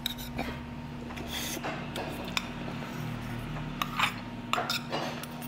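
Eating utensils clinking against dishes and bowls at a meal table, a few scattered sharp clinks with the loudest cluster about four seconds in, over a faint steady hum.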